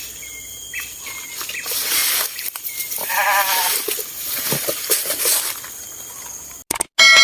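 A farm animal's single wavering bleat about three seconds in, amid short bird chirps and rustling. A bright ringing tone starts right at the end.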